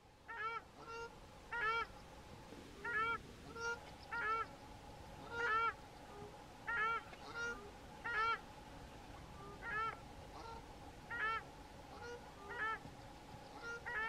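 A pair of South African shelducks duetting: a dozen or so honking calls, about one a second, with shorter, softer calls slipped between some of the louder ones.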